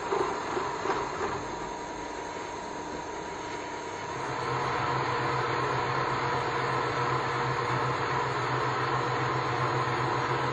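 Universal milling machine running with a steady mechanical drone and a few knocks in the first second or so; a steady low hum joins about four seconds in and the sound grows a little louder.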